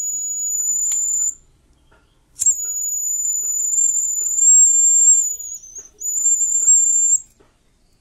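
Piezo buzzer of a homemade fire-alarm circuit giving a steady, shrill, high-pitched tone, set off as the IR receiver detects a lighter flame. It sounds for about a second, stops, then sounds again for about five seconds after a click of the lighter being struck, wavering slightly near the end.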